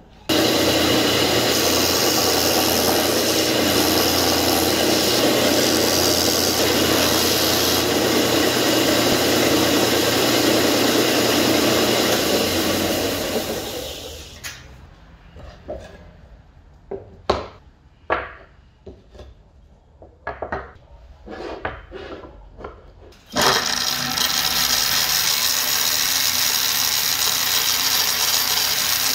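Vertical belt sander running as a wooden pattern piece is sanded against the belt; about halfway through it winds down, leaving scattered knocks and clicks of handling. Near the end a bandsaw comes in, running steadily as it cuts a small piece of wood.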